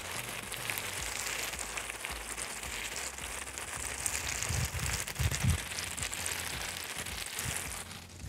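Potato wedges frying in oil in a cast-iron kazan: a steady sizzle with crackle. A few soft low thumps come about halfway through, and the sizzle fades near the end.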